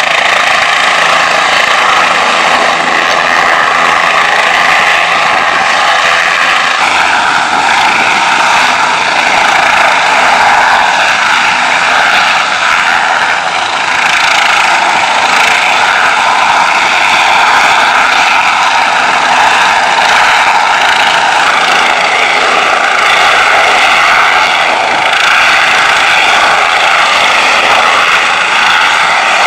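Bell 407 helicopter hovering: the steady whine of its turboshaft engine mixed with the noise of its four-blade rotor. The tone of the whine shifts slightly about seven seconds in.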